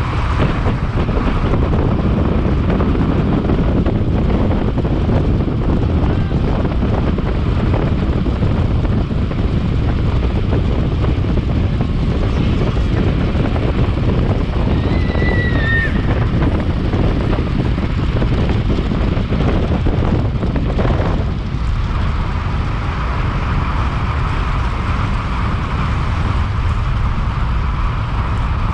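Wind buffeting the microphone, a steady low rumble throughout. About halfway through, a short high whistle-like tone falls slightly in pitch.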